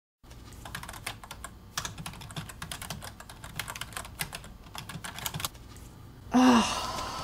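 Fast typing on a computer keyboard, a quick flurry of key clicks that stops about five and a half seconds in. About a second later a person lets out a short, loud groan of pain that falls in pitch.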